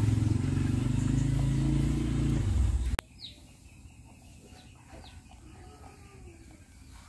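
An engine running steadily at close range cuts off abruptly about three seconds in. Left behind is a quiet outdoor background with a few faint bird chirps.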